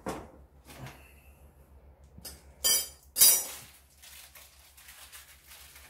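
Hard small objects clinking and knocking as tools and parts are handled on a table, with two louder clatters a little before the middle.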